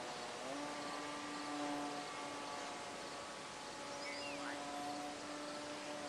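Electric RC model airplane's Graupner Speed 600 brushed motor and propeller whining in flight, a steady hum that steps up in pitch about half a second in and eases back down a few seconds later.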